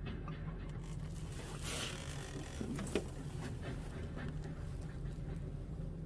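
Wind buffeting the microphone, a steady low rumble, with a short louder rush of hiss about two seconds in and a few faint clicks.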